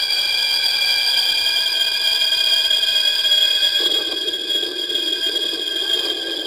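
Synthesized electronic drone: several high steady tones held together like a sustained chord, with a lower hum coming in about four seconds in.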